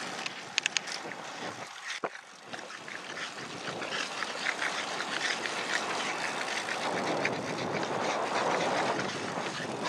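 Wind rushing over the microphone of a camera mounted on a moving bicycle, with tyre noise on a tarmac path, growing louder in the last few seconds. There is a sharp click about two seconds in.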